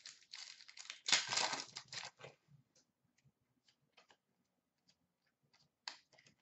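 A hockey card pack's wrapper being torn open and crinkled, loudest between about one and two seconds in. After that come scattered faint clicks and one short crackle as the cards are handled.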